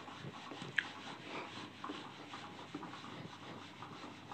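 Whiteboard duster rubbing across a whiteboard as it is wiped clean: faint scrubbing strokes, with one short click a little under a second in.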